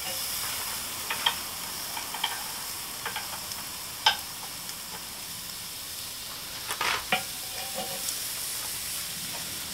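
Steaks searing on a hot grill grate over charcoal: a steady sizzle, with sharp clicks of metal tongs against the grate as the meat is laid down, the loudest about seven seconds in.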